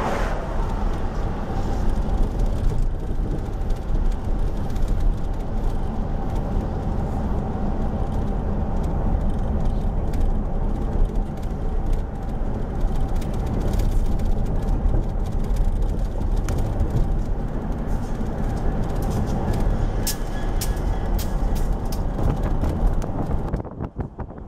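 Union Pacific diesel-electric locomotives passing close by, their engines running in a loud, steady rumble, with a few sharp clicks near the end.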